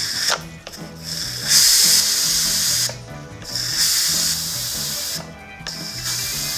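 Instant Pot pressure cooker's steam-release valve hissing as it is held open with a long spoon, fast-venting the pressure after cooking. The steam comes in several spurts, each about a second long, with short breaks between.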